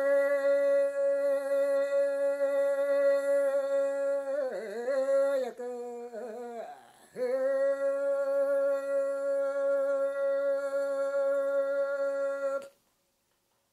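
Unaccompanied solo singing of a Yami (Tao) fishing song in the single-line chanting style: one long steady note, a few seconds of wavering, bending pitch in the middle, then another long held note that cuts off abruptly near the end.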